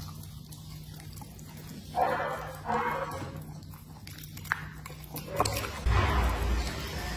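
Dog eating food fed from a hand: wet chewing and lip-smacking, with louder mouth noises about two and three seconds in and a heavier low thump near the end.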